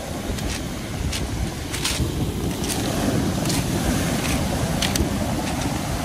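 Storm surf on the Black Sea breaking onto a pebble beach: a steady rush of foaming waves with a heavy low rumble, and pebbles clicking now and then in the wash.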